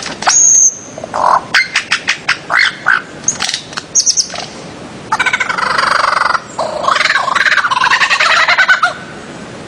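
Birds-of-paradise (Paradisaea) calling. A high whistled note comes first, then a quick run of short, sharp calls, then a long harsh, rasping call from about five seconds in that breaks off briefly partway and ends about a second before the close.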